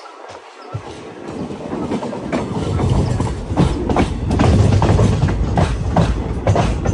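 Passenger train coach running along the track, heard from its open doorway: a steady rumble of wheels on rails with irregular sharp clickety-clack clicks, growing louder from about a second in.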